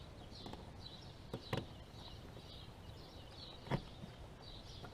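A few sharp clicks from pliers at work, the loudest about three and a half seconds in. Small birds chirp over them, repeating high chirps a couple of times a second.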